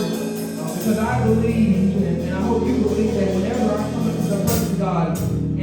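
Church band music with bass and drums, a voice singing or speaking over it; the bass comes in about a second in, with sharp drum hits near the end.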